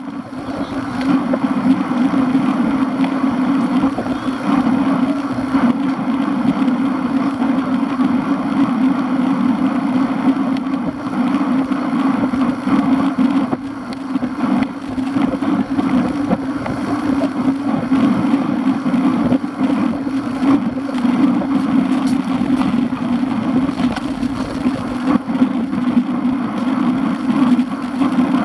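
Riding noise picked up by a camera mounted on a racing bicycle: a steady drone of tyre, road and wind noise as the bike rolls along with the group.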